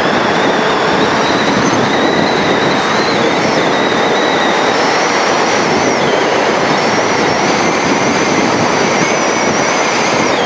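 Loud, steady rush of wind over the microphone of a mountain bike descending a paved mountain road at high speed (60+ km/h), with a faint wavering whistle above it.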